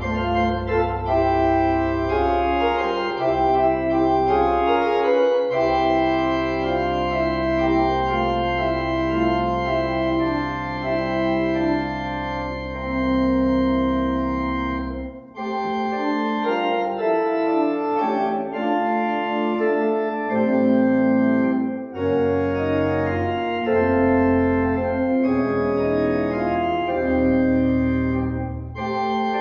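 Organ playing a postlude in held chords, with a deep pedal bass that drops out about halfway through. After that come lighter chords, with short breaks between phrases.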